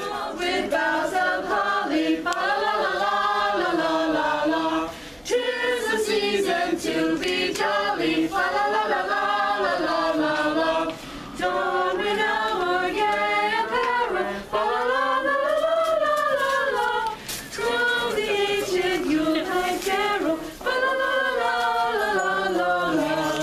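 A group of carolers singing a Christmas carol a cappella, in sung phrases of a few seconds each with short breaks between.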